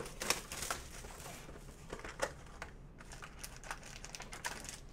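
Hands opening a trading-card hobby box and handling its packs: a string of short crinkles, rustles and light taps of cardboard and pack wrapper.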